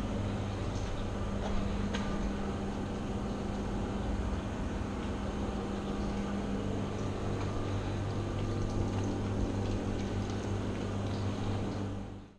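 Steady low machine hum with an even hiss over it and a few faint ticks, fading out quickly at the very end.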